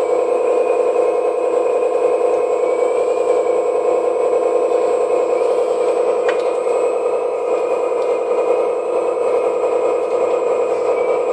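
RC4WD hydraulic scale excavator running: its hydraulic pump and a Beier sound module's engine sound make a steady drone, with a thinner higher tone wavering in pitch over it. A single sharp click about six seconds in.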